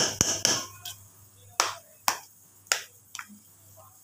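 Metal spoon knocking and scraping against a metal pan while stirring thick sticky rice. It starts with a quick run of knocks, then single knocks every half second or so, stopping about three seconds in.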